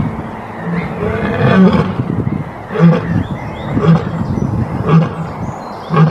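Lion roaring: a longer deep moaning call about a second in, then a run of short deep grunts about one a second, the grunting end of a roar sequence.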